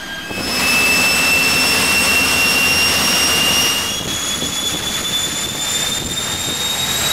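Rolls-Royce Derwent Mk 8 centrifugal-flow turbojet running loud: a heavy exhaust roar with a high whine that slowly rises in pitch. About four seconds in, the whine jumps higher and goes on climbing.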